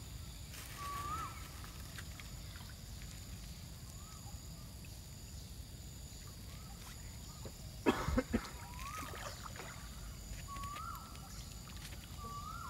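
Floating fish-feed pellets splashing into a pond in one brief burst about eight seconds in, while a bird repeats a short rising call every second or two.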